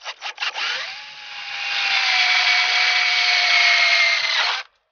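Cordless drill boring a hole through a thin steel sheet. A few short stutters as the bit starts, then a steady whine of the bit cutting the metal, its pitch sagging slightly as it bites. It cuts off sharply near the end.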